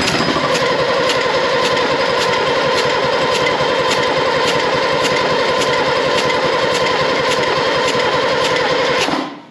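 AEC Matador six-cylinder diesel engine being turned over on its starter motor for a compression test, cranking steadily with a regular beat about twice a second, then stopping suddenly near the end. At one point it nearly fires. The cylinder under test reaches only about 280 psi against the manual's 490 psi: the engine is badly down on compression.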